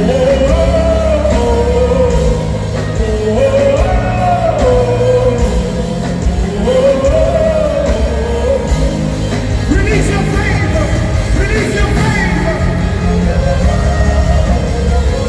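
Live gospel worship music: a voice singing a melody of held, sliding notes over a band with a steady bass.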